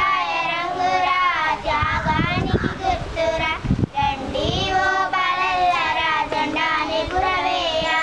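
A group of schoolgirls singing a song together, without instruments.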